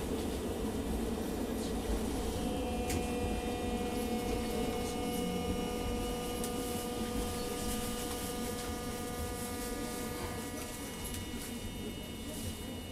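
Inside a Hiroshima Electric Railway 800-series tram running on street track: a low running rumble, with a steady whine from its armature-chopper traction control setting in about two seconds in. The whine is several fixed pitches held together.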